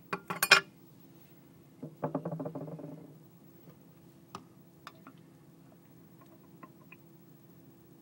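Metal clicks and clinks of a Zippo lighter being handled, the loudest in the first half second, as the insert is pulled from its case, followed by a few light taps. About two seconds in there is a short pitched sound lasting about a second.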